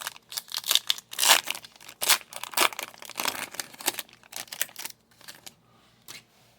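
Crinkling and rustling as a pack of trading cards and its wrapper are handled: a dense run of quick crackles that thins out about five seconds in, with a single click near the end.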